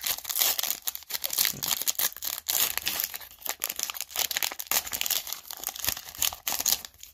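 Foil wrapper of a Wild Card Alumination NIL trading-card pack being torn open and crinkled in the hands: a dense, irregular crackle that stops near the end.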